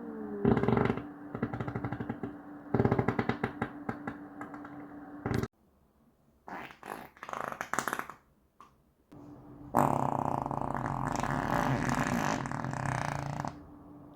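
A run of about five separate farts, each a rippling flutter: short ones in the first half, then a long one lasting about four seconds near the end.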